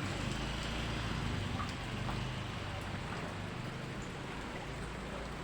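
Steady rain falling, an even hiss with a low rumble underneath and scattered faint drip ticks.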